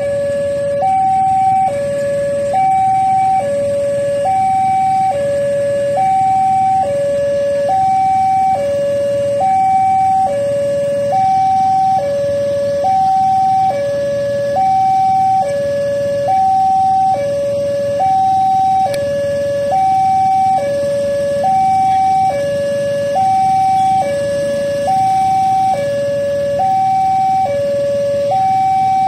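Railway level-crossing warning alarm sounding its electronic two-tone signal, alternating evenly between a higher and a lower tone about once a second. It warns that a train is approaching, with the barriers lowered.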